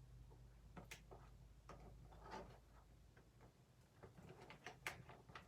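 Near silence with faint, scattered small clicks and taps from handling objects, a quick run of them about four to five seconds in.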